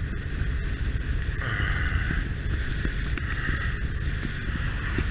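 Motorcycle underway: a steady low engine and road rumble with wind noise on the microphone.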